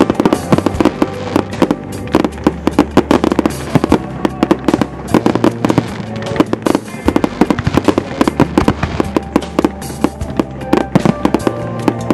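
Aerial firework shells bursting in a rapid, continuous string of bangs and crackles, with music playing underneath.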